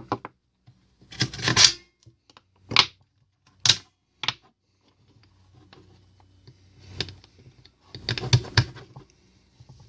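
Cylindrical lithium cells being pulled out of the spring-loaded slots of a LiitoKala Lii-402 battery charger and set down on a wooden bench: a string of short sharp plastic-and-metal clicks and clacks. Then a closer cluster of clicks comes from handling the charger itself.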